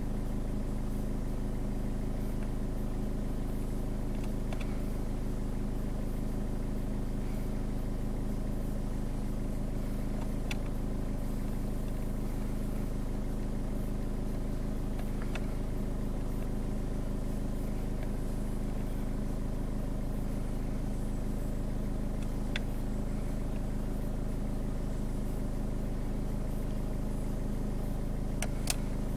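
The 1.4-litre Duratorq TDCi (DV4) four-cylinder diesel of a Ford Fiesta MK7 idling steadily at about 850 rpm, heard from inside the cabin. A few faint clicks sound over it.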